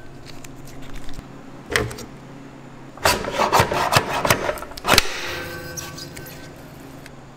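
A whole tomato pushed through a commercial tomato slicer's row of steel blades. One knock comes early, then about three seconds in a two-second run of scraping and clicking ends in a sharp knock, followed by a faint fading ring.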